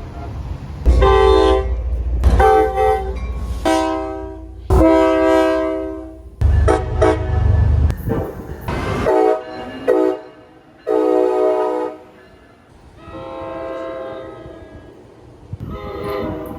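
Train air horns blowing a string of short and long blasts, each a chord of several tones, with abrupt cuts between differently pitched horns. A heavy low rumble lies under the horns in the first few seconds and again around seven seconds in.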